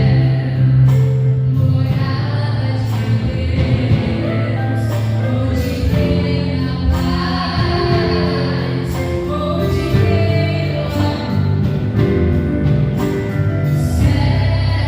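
A live gospel band playing, with singing over guitar and bass.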